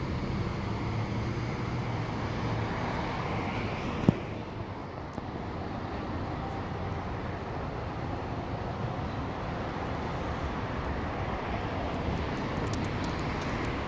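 Steady hum of idling vehicles and road traffic, with one sharp knock about four seconds in.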